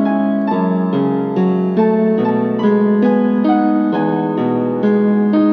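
LP6110E electronic keyboard's built-in piano voice playing a melody over chords, a new note about every half second, with a chord held near the end.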